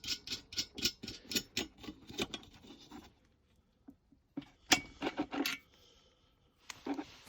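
A quick run of light clicks and taps, about four a second, then a pause and a few sharper clicks about five seconds in.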